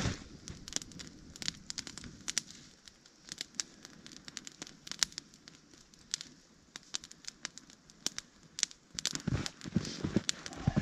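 Small open fire of dry brush and twigs crackling and popping in irregular sharp snaps. There is a soft rustle of sticks being moved near the start and again near the end.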